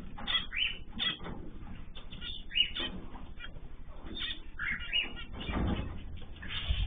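Small cage birds chirping and calling over one another, with wings flapping and a few soft thuds.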